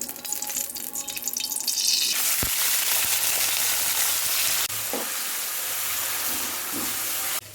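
Food frying in hot oil in a pan. Light crackling comes first, then a loud, steady sizzle from about two seconds in, which drops a little just after halfway and cuts off abruptly just before the end.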